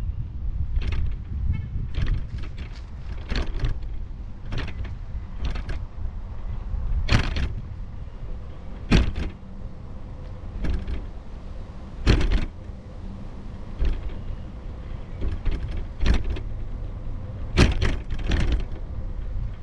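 Low rumble of wind and rolling over rough asphalt on a moving, low-mounted action camera. Sharp irregular knocks and rattles come roughly once a second as it jolts over the cracked pavement.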